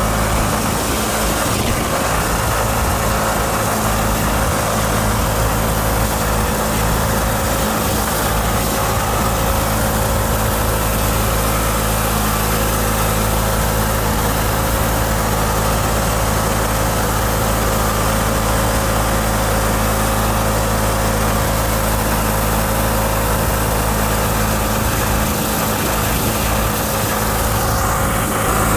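Murray riding lawn tractor's engine running steadily as the tractor drives along, a constant drone that does not change in speed.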